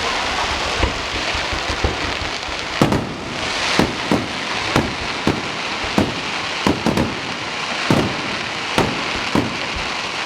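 Fireworks display: a steady crackling haze punctuated by about ten sharp bangs, roughly one a second, from shells bursting overhead.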